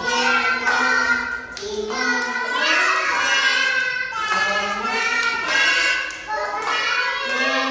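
Young children and their male teacher singing a children's song together, with hand clapping.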